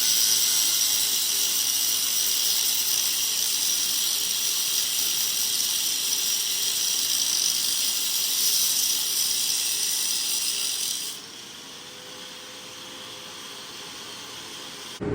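Angle grinder grinding the cast aluminium brake and fender tabs off motorcycle fork lowers: a steady, loud, high grinding noise. About eleven seconds in it drops sharply to a much quieter sound.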